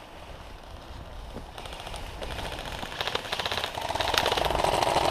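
Airsoft guns firing on full auto: a rapid, even clatter of shots that starts about a second and a half in and grows louder from about three seconds in.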